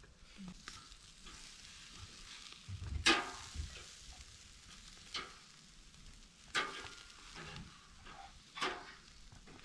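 Meat sizzling over charcoal on a grill grate with a steady hiss. A metal utensil clicks and scrapes against the grate four times as the pieces are turned, loudest about three seconds in.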